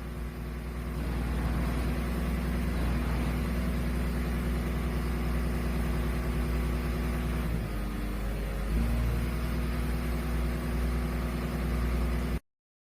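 Excavator engine and hydraulics driving a StarScreen 4-150MAX screening bucket: a steady low drone that shifts briefly about eight seconds in and cuts off suddenly near the end. The maker reports a strange noise from this bucket under test.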